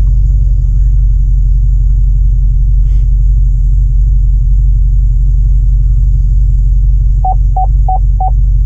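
Cammed, supercharged 6.2-litre V8 of an HSV VF Senator running at low speed with a steady deep rumble while the car is being parked, heard from inside the cabin. Near the end come four short, evenly spaced electronic beeps from the car.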